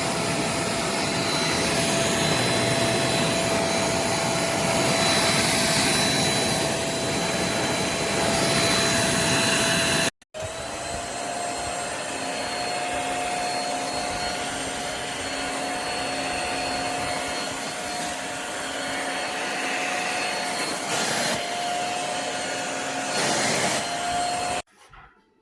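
Dibea handheld bed vacuum cleaner's motor running with a steady whine over a rush of air. It cuts out briefly about ten seconds in, comes back a little quieter and higher in pitch, and stops shortly before the end.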